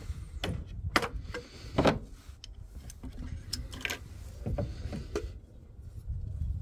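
Irregular sharp clicks and knocks of a cast-iron exhaust manifold and turbocharger being handled and lowered into a VW Crafter's engine bay, about ten in all, over a low steady rumble.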